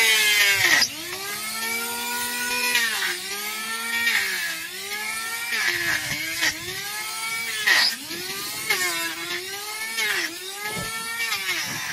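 Corded electric hand planer, used as a hoof trimmer, running at high speed and shaving the horn of a donkey's hoof. Its motor whine dips in pitch each time the blades bite into the hoof and climbs back as it lets off, repeating about eight or nine times.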